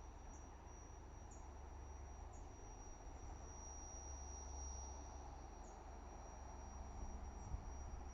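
A cricket trilling steadily in one high tone, over a low rumble of wind on the microphone.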